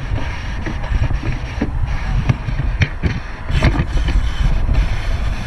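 Wind buffeting an outdoor microphone: a loud, uneven low rumble, with scattered clicks and knocks throughout.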